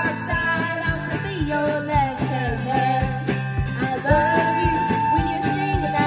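Small live band playing an acoustic pop song: flute with long held notes over strummed acoustic guitar and a steady drum-kit beat.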